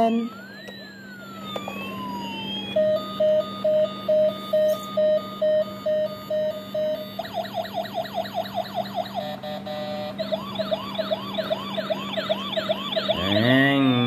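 Toy ambulance's electronic siren cycling through several patterns: a slow rising-and-falling wail, then beeping about twice a second, then a fast yelp and a warbling tone, over a low steady hum.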